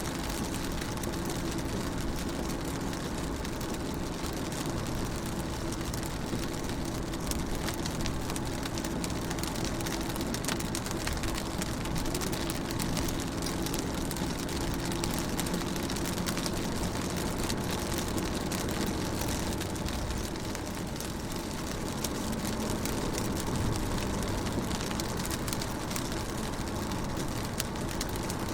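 Rain falling on a window: many fine drop ticks over a steady hiss of rain, with a low steady hum beneath.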